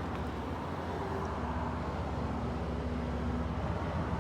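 Steady outdoor background rumble with a faint low hum in the middle of it.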